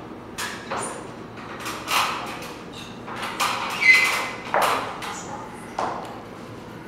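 Aluminium stepladder being knocked and handled, giving an irregular string of sharp metallic knocks and taps. The loudest comes about four seconds in and rings briefly.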